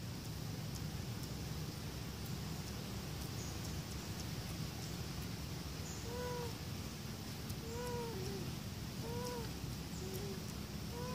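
Young long-tailed macaque giving short, plaintive coo calls, each rising then falling in pitch. Four calls come about a second and a half apart, starting about halfway through, over a steady low background rumble.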